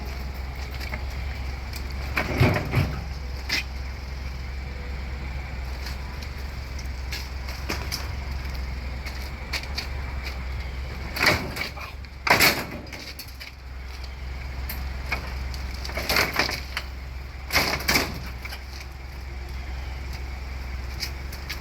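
Steady low rumble of a vehicle on the move, broken by six or so sharp knocks and clunks, the loudest a little past the middle.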